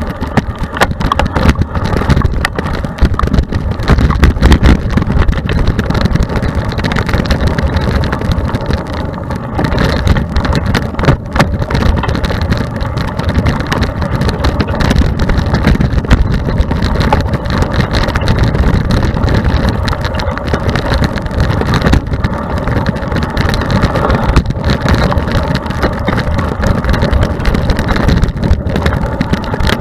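Mountain bike ridden fast down a dirt forest trail, heard from a camera on the bike or rider: a continuous rumble of tyres over the dirt and wind buffeting the microphone, with constant small knocks and rattles from the bike as it bounces over the ground.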